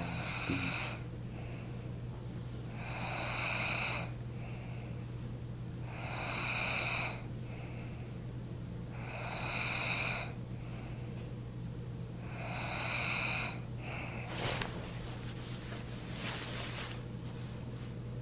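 A sleeping man snoring, with a long rasping breath about every three seconds, five in all, over a steady low electrical hum. Near the end a sharp click is followed by some scattered rustling.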